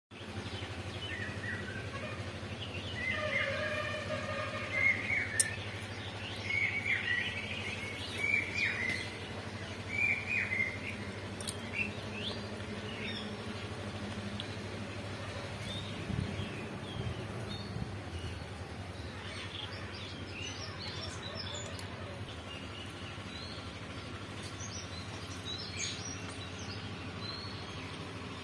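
Birds chirping in short, quick calls, thickest in the first ten seconds or so and sparser later, over a faint steady hum.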